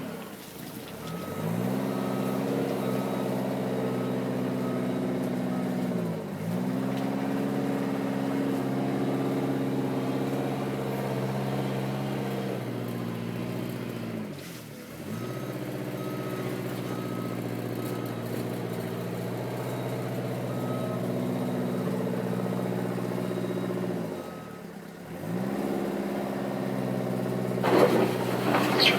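Diesel engine of a Eurocomach E 235 K excavator running at working speed, its pitch dipping and recovering four times as it is loaded. A faint, evenly repeated beeping alarm sounds in stretches, and a loud clattering comes near the end.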